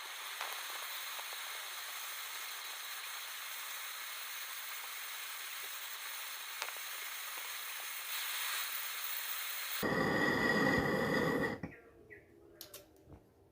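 Steady hiss of gas escaping under pressure, as from a gas torch or a refrigerant line during a refrigerator repair. About ten seconds in it turns louder and buzzier, with a steady tone, for about two seconds, then cuts off.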